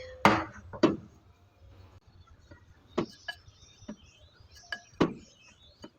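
A spoon clinking against a bowl while gram flour roasting in ghee is stirred. The clinks come irregularly, a second or so apart, with the loudest two in the first second.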